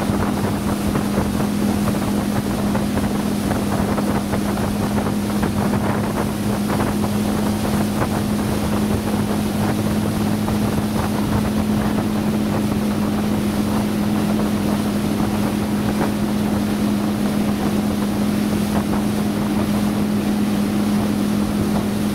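Motorboat engine running steadily at speed, a constant unchanging drone, with wind noise on the microphone.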